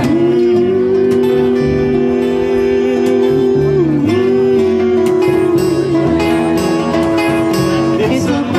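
Live acoustic band playing an instrumental passage of a country-blues song: upright bass and acoustic guitar under a lead line of long held notes.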